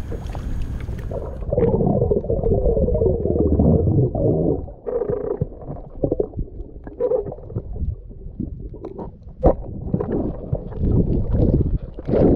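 Muffled underwater sound picked up by a camera in its waterproof housing while a diver swims: water rushing and gurgling, with scattered knocks against the housing, one sharper knock about nine seconds in. For the first second the sound is open-air water and wind, before the underwater muffling sets in.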